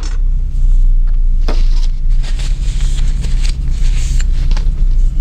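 Steady low hum, with handling noise over it: a sharp click at the start, another about a second and a half in, then rustling and light knocks as a small knife is picked up and handled.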